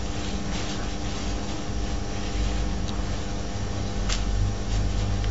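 A large calligraphy brush, loaded with ink, rubbing softly across paper, heard faintly over a steady low hum and hiss, with a couple of small clicks.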